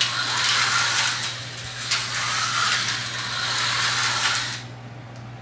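Tyco HO slot cars running laps on a plastic track: an electric motor whine with a buzzing hiss that swells and fades as the cars come round, with a few sharp clicks. It stops suddenly about four and a half seconds in.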